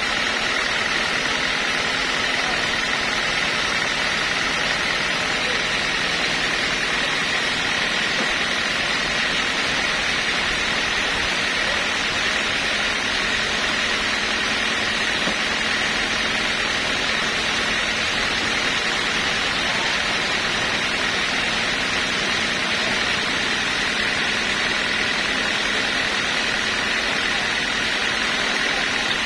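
Sawmill machinery running steadily: an even mechanical noise with a constant whine, unchanging throughout.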